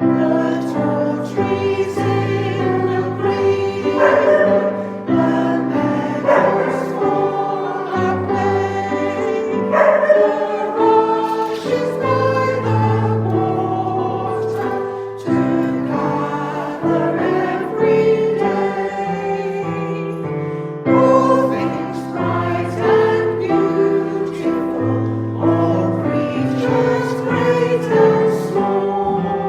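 Many voices singing a hymn together over sustained accompanying chords, in phrases with brief breaks between the lines.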